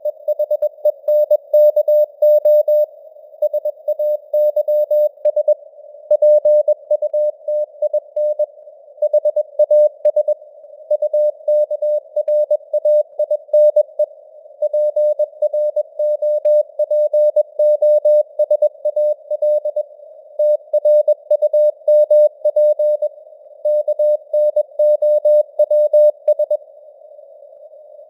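Morse code (CW) news text sent at 21 words per minute: a single mid-pitched beep keyed on and off in dits and dahs, grouped into words with short pauses between them. Underneath runs a narrow band of hiss simulating receiver noise, and the signal strength fades up and down, simulating QSB.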